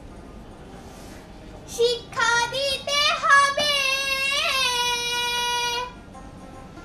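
A child's high voice singing one drawn-out phrase with sliding, ornamented pitch, starting about two seconds in and stopping about a second before the end.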